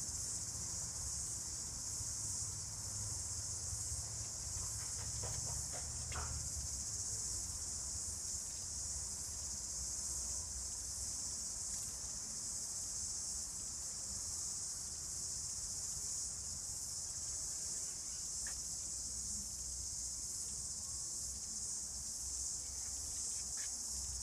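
Steady high-pitched insect chorus over a low background rumble, with a few faint clicks about five to six seconds in.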